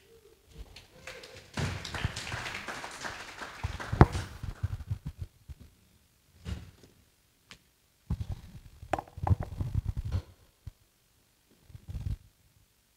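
Handheld microphone being handled: rubbing, taps and knocks on the mic body, with a single sharp knock about four seconds in.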